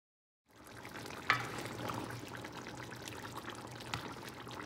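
Chicken simmering in thick sauce in a stainless steel pan while a black cooking spoon stirs it. The spoon gives a sharp clack against the pan about a second in and a softer knock near the end.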